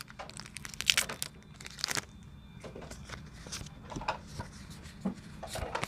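Crinkly foil wrapper of a Pokémon card booster pack rustling and tearing open, with a few sharp crackles in the first two seconds, then quieter handling of the cards.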